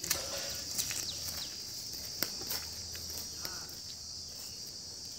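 Steady high-pitched chorus of insects, with a few sharp clicks over it.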